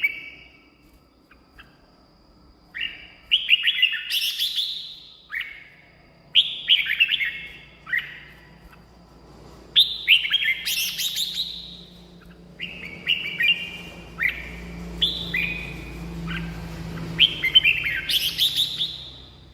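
Red-whiskered bulbul singing: short phrases of bright, warbling whistled notes, repeated every couple of seconds with brief pauses between them.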